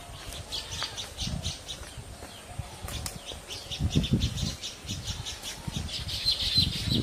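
Baya weaver chattering at its woven grass nest: fast runs of short, dry ticking notes, with a thin held whistle about six seconds in. Low thuds and rustles sound underneath, loudest about four seconds in.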